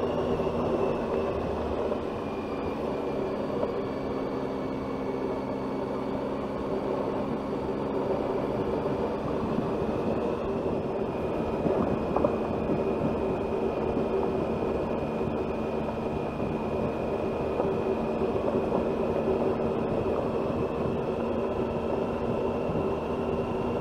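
Motorcycle engine running steadily at an even cruising pace, with continuous road and wind noise and a faint high steady whine above it.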